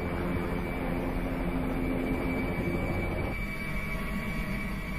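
Helicopter in flight: steady engine and rotor noise with a constant high turbine whine. The deeper tones drop away a little past three seconds in, leaving a thinner steady noise.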